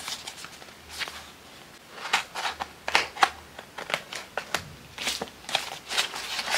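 Packaging being opened by hand: irregular crinkling, rustling and clicking, sparse at first and busier from about two seconds in.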